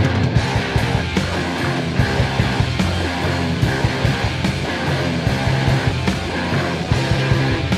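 Rock music: a full band track with a steady beat.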